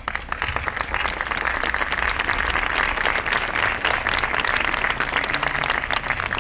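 Audience applauding: many hands clapping at once, breaking out suddenly and holding steady.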